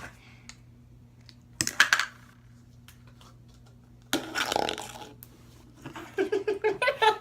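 Fluffy slime being handled: a few crackling clicks about a second and a half in, then a longer squelching, squishing noise a couple of seconds later, followed by short quick bursts of giggling near the end.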